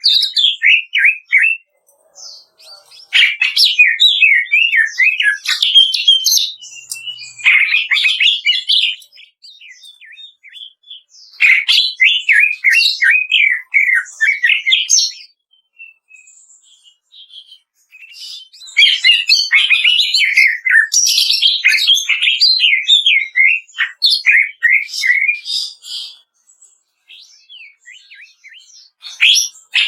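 Cucak ijo (green leafbird) singing in rapid, crackling bursts of chattering notes. The song comes in several bouts of a few seconds each, with short pauses between.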